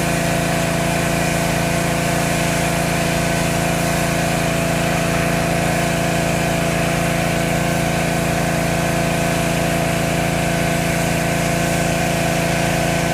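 Pressure washer's engine running steadily, a constant unchanging drone.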